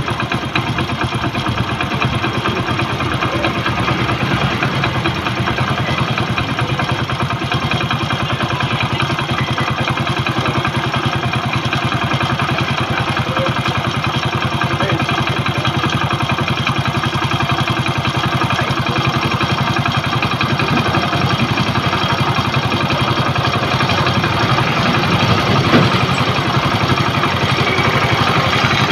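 Hero Passion Pro's single-cylinder four-stroke engine idling steadily, the idle speed rising slightly as the carburettor's idle screw is turned in. The idle had been set too low, below about 1000 rpm, which makes the bike stall often.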